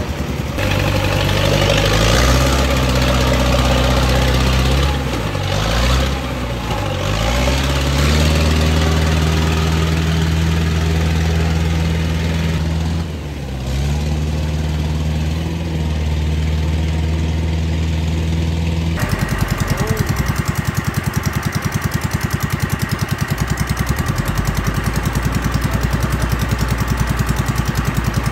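Engine of a small tracked rice-carrier running under load, its pitch dipping and recovering a few times, then holding steady. About two-thirds of the way through, the sound switches abruptly to a rougher engine note with a quick, even pulsing.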